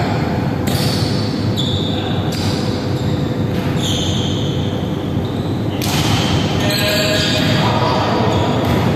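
Echoing indoor volleyball game: players' voices calling out over the hall's din, with ball thuds and short sharp squeaks from play on the wooden court.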